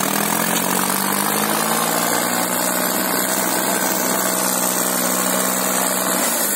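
Diesel tractor engines of a New Holland 3630 and an Arjun Novo 605 running steadily during a tractor tug-of-war, held at speed under the strain of the pull. The note rises a little at the start and drops away near the end.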